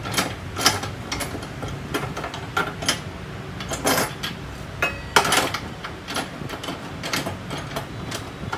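Steel angle iron being set in a cut-off saw's vise and clamped: a string of irregular sharp metal clicks and clanks, with the saw motor not running.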